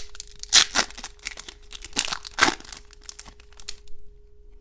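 Chrome baseball cards being handled and flipped through by hand: a few brief rustling, sliding sounds, the loudest about half a second and two and a half seconds in, then quieter.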